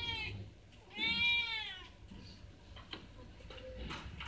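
A domestic cat meowing: the end of one meow, then about a second in a long meow that rises and falls in pitch. A couple of faint clicks follow later.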